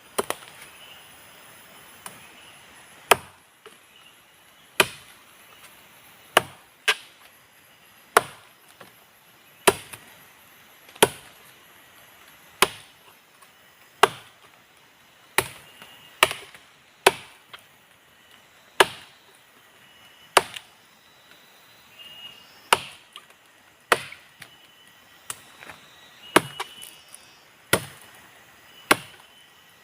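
Steady chopping with a blade into a woody jungle vine, the akar zambrut root: about twenty sharp strikes, one every second or two.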